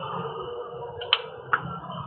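A slingshot shot: two sharp cracks about half a second apart, the rubber bands snapping on release and the 8 mm ball striking the target, over steady background noise.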